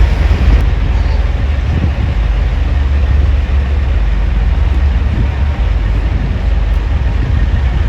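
Heavy truck diesel engine idling with a steady low rumble.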